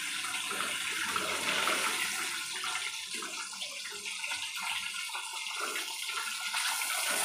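Rohu fish steaks frying in hot oil in a kadai, a steady hissing sizzle.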